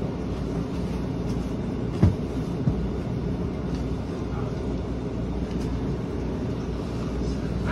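Steady low rumble heard inside a standing SEPTA Route 10 trolley car, with two sharp knocks a little over two seconds in, the first the louder.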